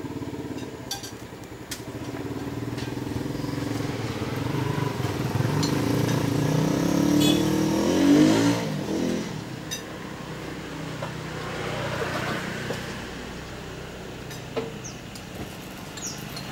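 A vehicle engine running, growing louder and rising in pitch to a peak about eight seconds in, then dropping away.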